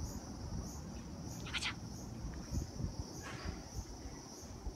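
An insect chirping faintly and evenly, about three high chirps a second, over a low handling rumble, with two short rustling sounds about a second and a half and three seconds in.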